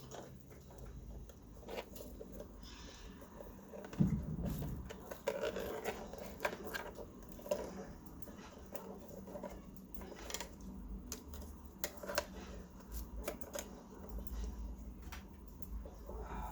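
Hands working on the plastic housing and internal parts of a drip coffee maker: scattered small clicks, taps and rubbing, with a louder knock about four seconds in.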